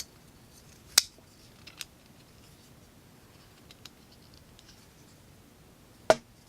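Bestech Fanga flipper folding knife being flipped open and closed by hand: two sharp snaps of the blade, about a second in and again near the end, with a few faint ticks between.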